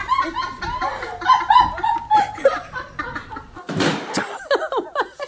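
High-pitched laughing in quick repeated bursts. About three and a half seconds in comes a short, rough burst of noise, then more laughing and exclaiming.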